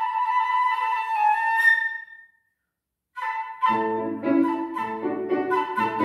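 Concert flute playing held high notes with a quick upward flourish, then breaking off for about a second. It comes back in, and a Petrof grand piano accompaniment enters with lower chords beneath it.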